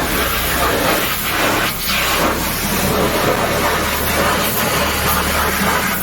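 Pressure washer spraying a steady high-pressure jet of water, a loud hiss.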